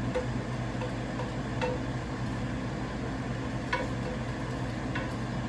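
Spatula scraping and tapping in a skillet of hot, sizzling ground beef, a few short scrapes spread through, over the steady hum of an air fryer running.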